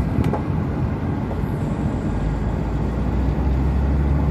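Honda Fit driving, heard from inside the cabin: steady engine and road rumble. A single short click comes just after the start. The low drone grows stronger about three seconds in as the car gathers speed.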